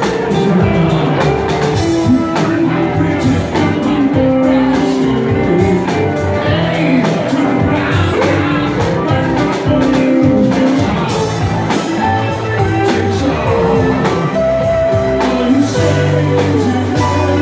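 Live rock band playing: electric guitars, bass, drum kit and keyboard, with held guitar notes over a steady drum beat.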